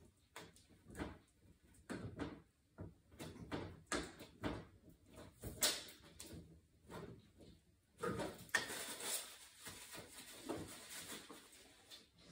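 Irregular knocks, clicks and scrapes of hand tools against the metal inside an oil-fired boiler's combustion chamber as it is worked on during a service, with a denser rubbing or scraping sound from about eight seconds in.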